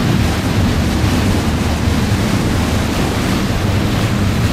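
Steady, loud rush of wind on the microphone and churning water from a fast-moving watercraft running through choppy waves, over a constant low rumble.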